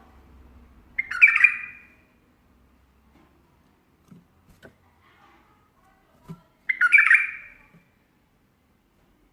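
A bulbul giving two short, harsh calls about five and a half seconds apart, each under a second long. A few faint taps come between them.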